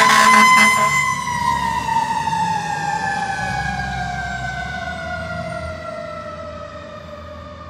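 Fire engine siren passing and driving away: one loud tone that holds, then falls slowly and steadily in pitch and fades over several seconds. A rapid pulsing sound with it stops about a second in, and a low engine rumble sits underneath.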